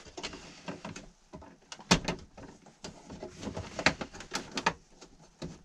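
Irregular small clicks, taps and scrapes of stiff electrical wire being bent and worked into place inside a metal breaker panel, with sharper knocks about two and four seconds in.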